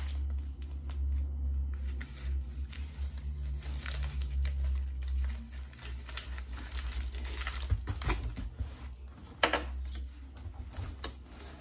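Bubble wrap crinkling and crackling as it is handled and pulled off a wrapped wine glass, in irregular scattered crackles, with a sharper crack about nine and a half seconds in.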